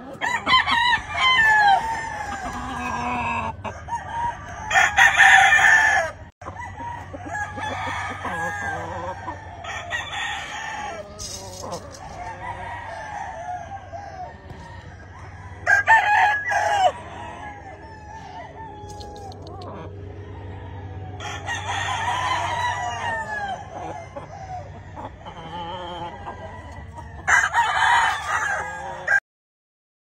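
Gamefowl roosters crowing again and again: a loud crow every five or six seconds, with quieter crows overlapping between them. The sound cuts off suddenly near the end.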